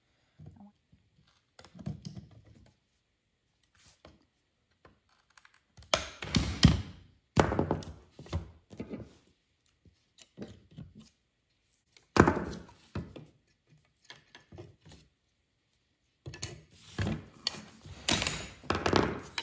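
Pliers prying the wooden crossbars and staples out of an old wooden picture frame on a table: clusters of wooden knocks and clunks with quiet gaps between, busiest near the end.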